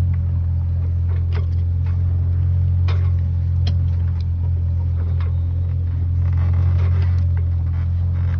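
Sailboat's inboard engine running steadily while motoring, a constant low drone, with a few faint clicks over it.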